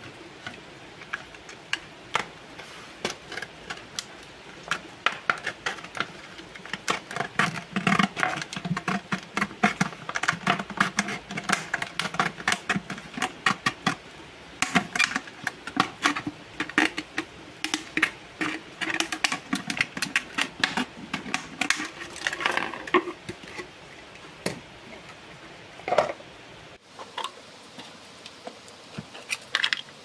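Thin plastic drink bottle crackling and crinkling as it is cut with a utility knife and squeezed by hand: a dense, irregular run of sharp clicks and crackles with short creaks, thinning out near the end.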